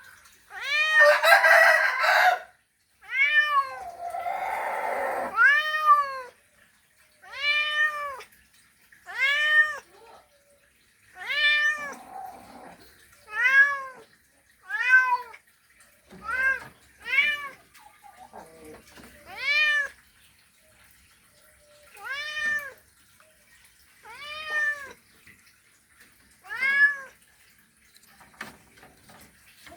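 Male cat's mating call: a series of short meows, each rising then falling in pitch, about one every two seconds. Near the start come louder, rougher, noisier cries.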